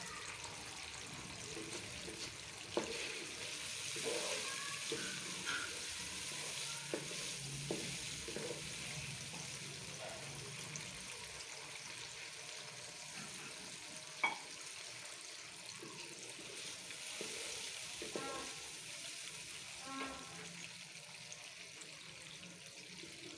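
Browned onions in oil sizzling steadily in a cooking pot as they are stirred, with occasional sharp clicks of the spoon against the pot, the loudest about two-thirds of the way through.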